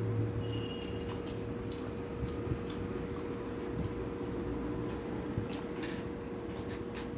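Fingers mixing rice and curry on a steel plate, with soft wet squishing and small clicks; a handful is taken into the mouth near the end. A steady hum runs underneath.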